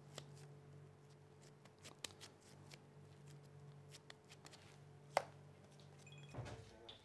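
Faint soft pats and small clicks of gloved hands rolling and flattening minced chicken meatball mixture, over a low steady hum.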